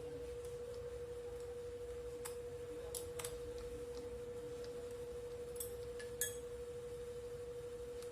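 A handful of short metallic clicks and clinks as the angle grinder's lock nut and flange are handled and fitted, the loudest a little after six seconds in. Under them runs a steady high-pitched hum.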